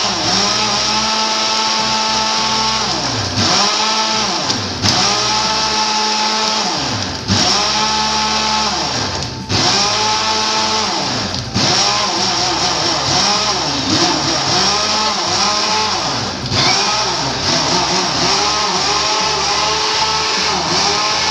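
Electric countertop blender running continuously, blending a milkshake of ice, chocolate malt drink and Oreo cookies. The motor whine repeatedly sags in pitch and climbs back, about every two seconds, with a few brief dips in level.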